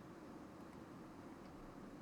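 Near silence: a steady low hiss of room tone, with two faint ticks about a second apart.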